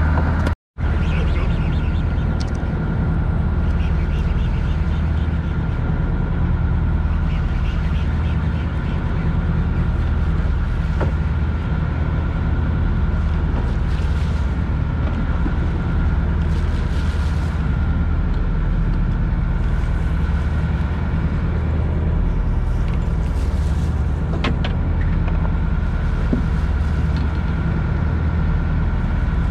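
Fishing boat's engine running with a steady low drone. It cuts out for a moment about half a second in.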